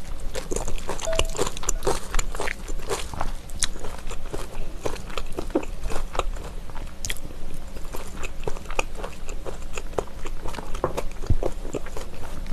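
Close-miked chewing of raw trout slices mixed with shredded vegetables and red pepper sauce, with many small wet mouth clicks, and chopsticks working in a glass bowl.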